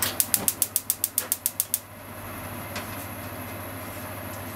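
Gas stove burner's spark igniter clicking rapidly, about a dozen sharp clicks in under two seconds, followed by a steady hiss.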